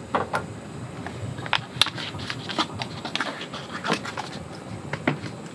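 Scattered light clicks and knocks from handling a paper carton and an aluminium pot on a cassette gas stove as white dashi stock is poured in, over a steady low background hiss.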